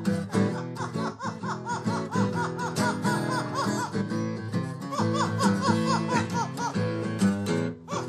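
Acoustic guitar strummed and picked in a blues pattern, with an Amazon parrot singing along in short, repeated rising-and-falling notes in two runs, one early and one in the second half.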